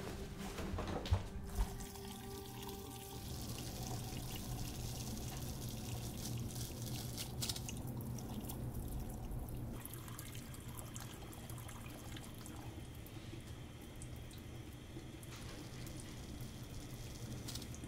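Two short thumps about a second in, then a tap running steadily into a sink, with quiet background music.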